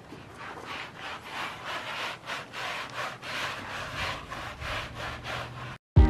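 Rubber-gloved hands scrubbing shampoo into a goat's coat: a run of scratchy rubbing strokes, about three a second, that cuts off just before the end.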